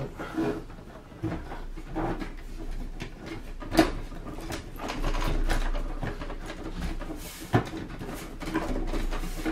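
Hands working the unscrewed metal outer case of a Sony mini hi-fi system loose, with rubbing, scraping and knocking as it is jiggled free of its tabs. There is a sharp click just under four seconds in and another about seven and a half seconds in.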